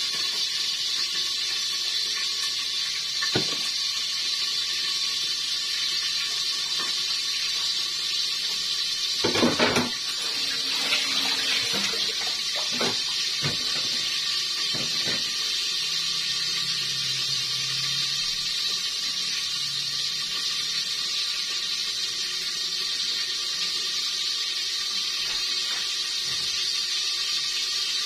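Knife cutting through a bitter gourd (ampalaya) held in the hand, heard as a few scattered clicks and a short louder clatter about nine seconds in. All of it sits over a steady hiss.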